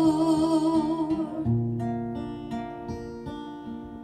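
Live acoustic music. A woman's held sung note with vibrato trails off about a second in. An acoustic guitar carries on alone, picking chords and getting gradually quieter.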